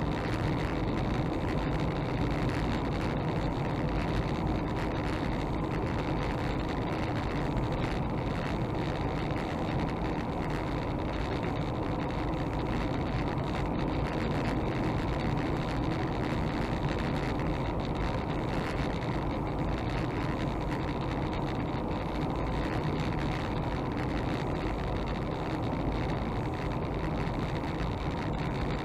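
Car driving at a steady speed on a sealed country road, heard from inside the cabin: an even, unbroken mix of engine and tyre noise.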